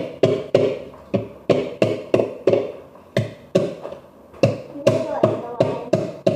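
Garlic cloves being pounded with a masher in a pot: a steady run of sharp strikes, about three a second, each with a brief ring from the pot.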